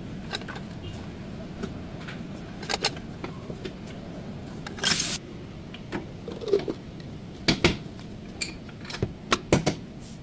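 Irregular sharp metallic clicks and knocks of hand tools working on a car's front tie rod, with a brief hiss about five seconds in.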